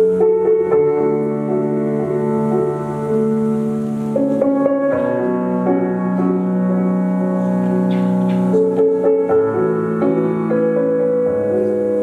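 Slow piano music with sustained notes and chords that change every second or so.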